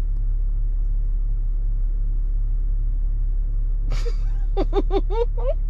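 A steady low rumble with a constant low hum under it. About four seconds in come a breath and a few short voiced sounds from a person.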